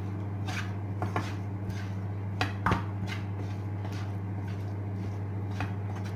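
A spatula scraping and knocking against a nonstick frying pan while a vermicelli and minced-meat filling is stirred, with the sharpest knocks about two and a half seconds in. Under it runs the steady hum of a kitchen range hood fan.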